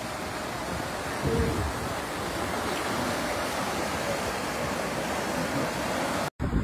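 Fast-flowing floodwater rushing by in a steady, even wash of noise.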